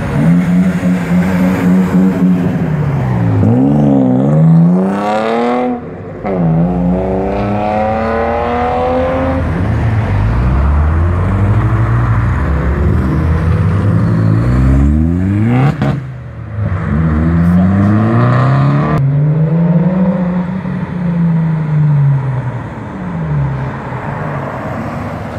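Modified cars pulling away one after another, among them a yellow Honda Civic hatchback and a purple widebody Nissan 350Z with its V6. The engines rev hard, their pitch repeatedly rising and falling as they accelerate and change gear.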